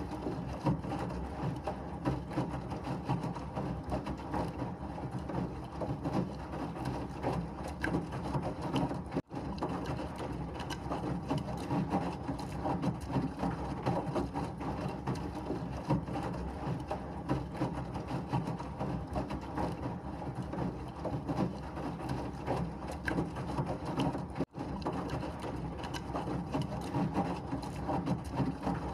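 Washing machine running steadily with a continuous rattling, rushing churn. The sound cuts out for an instant twice, about a third of the way in and again near the end.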